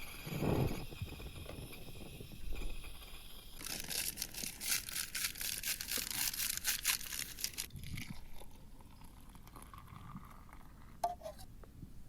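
Crinkling rustle, like material being handled or crumpled, dense for about four seconds starting about four seconds in, then fainter scattered rustles and a short sharp click near the end.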